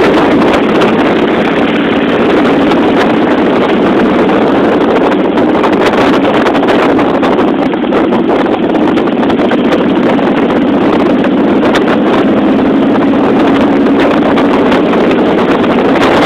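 Motorcycle riding at road speed: a steady rush of wind on the microphone over the running engine, with no sudden changes.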